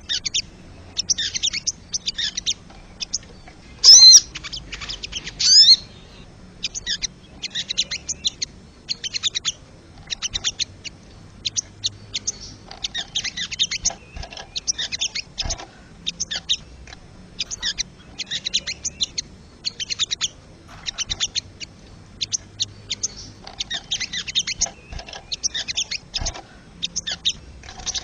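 Wild sogon bird calling: a long run of short, rapid chattering bursts, high-pitched and repeated about once a second. A louder whistled call with sliding notes stands out about four to five seconds in.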